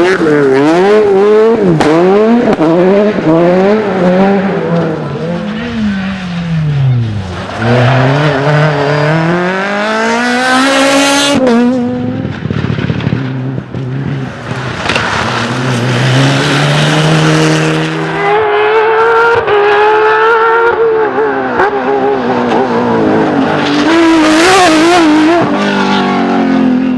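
Rally car engines at full competition load, the pitch climbing hard through each gear and dropping sharply on upshifts and when the driver lifts off, again and again as the cars pass at speed.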